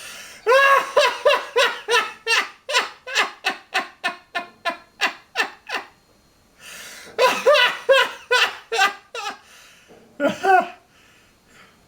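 A man laughing hard: a long run of quick, high-pitched 'ha' bursts, about three a second, that grow fainter, then a breath in and a second run of laughter, with two last bursts near the end.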